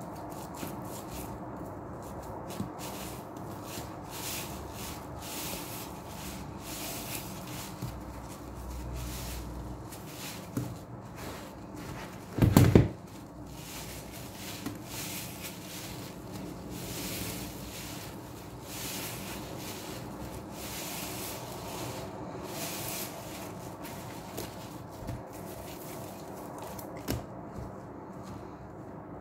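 Large soap-soaked foam sponges squeezed and worked by hand in a plastic tub of soapy water: repeated wet squelches with water sloshing. Near the middle there is one brief, much louder knock.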